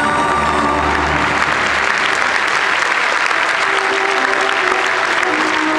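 Audience applauding over backing music, swelling about two seconds in and thinning near the end.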